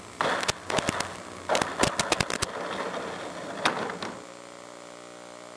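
RC model airplane rolling to a stop on asphalt, with a run of sharp knocks and rattles from the airframe and wheels. About four seconds in these give way to a steady electrical buzz once it comes to rest.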